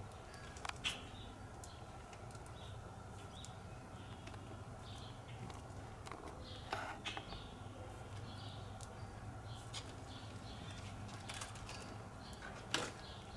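Birds chirping over and over in the background, with a few sharp clicks or taps and a steady low hum underneath.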